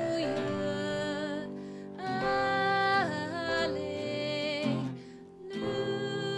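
Worship song: a woman and a man singing together to acoustic guitar and keyboard, in sung phrases with short breaks about two seconds in and again after five seconds.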